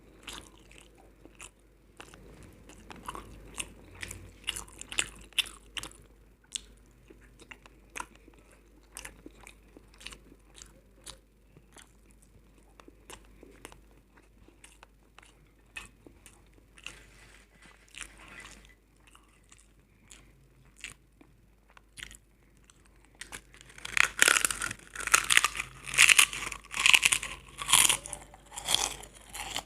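Close-miked eating: scattered chewing and mouth clicks, then near the end a loud, dense run of crunching bites.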